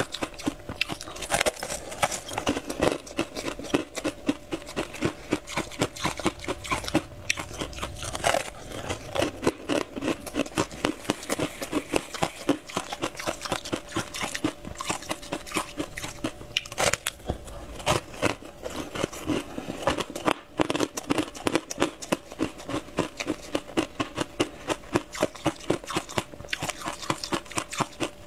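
Close-miked chewing and crunching of a crisp, crumbly fried pastry ball: a dense run of small crackly crunches, several a second, with a few louder bites.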